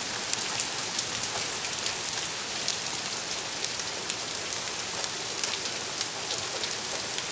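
Steady rain falling on the ground around, an even hiss with scattered single drops landing close by as small clicks.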